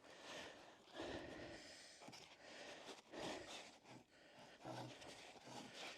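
Near silence, with faint breaths and soft rustles.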